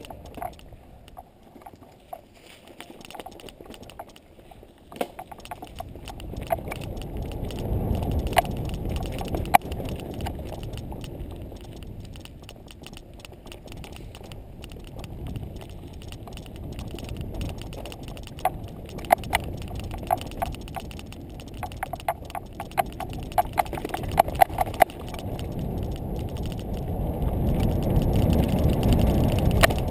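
Low rumble of wind and movement on a camera travelling along a dirt trail, swelling and easing, with scattered sharp clicks and a run of rattling clicks in the second half.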